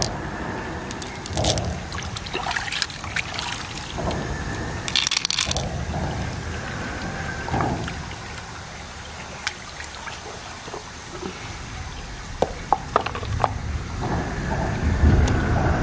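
Wet handling sounds as fingers pick through the flesh of an opened freshwater river mussel, with irregular small clicks. A quick run of sharper clicks comes about three-quarters of the way in, as the shells are moved about.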